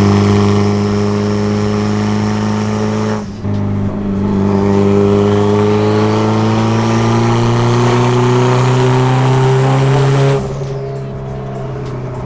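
Mitsubishi Lancer Evolution 8's big-turbo 4G63 four-cylinder engine pulling at steady revs. About three seconds in the sound briefly dips, then it rises slowly in pitch for several seconds before dropping off sharply near the end.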